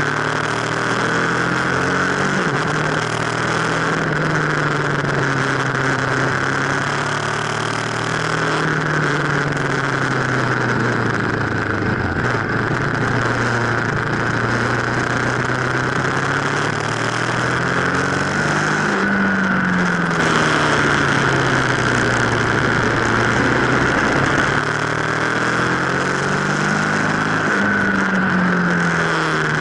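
Aprilia RSV1000 Factory's 60-degree V-twin running under way, its note rising and falling with the throttle, climbing to a peak about two-thirds of the way in and again near the end. A steady wind rush runs underneath.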